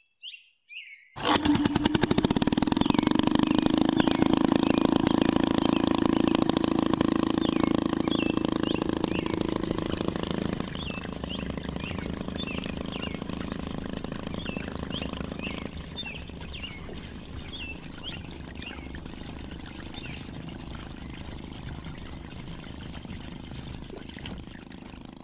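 A small electric water pump motor switches on about a second in and runs with a steady hum, with water hissing and splashing as it streams from the model pipe's taps. The sound drops in level twice later on.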